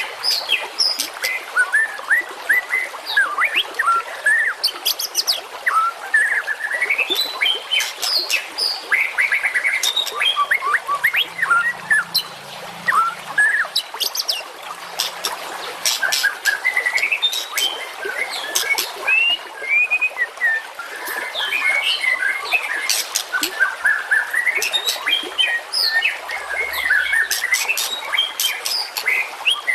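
Dense, continuous songbird chirping and trilling: rapid tweets, short whistles and sharp clicks, several calls overlapping. This is a masteran birdsong recording made to train caged white-rumped shamas (murai batu).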